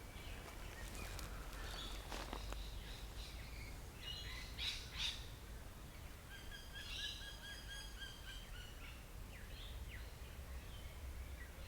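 Birds calling faintly: scattered chirps, a couple of sharp calls about five seconds in, and a run of quick repeated notes around seven seconds, over a steady low outdoor rumble.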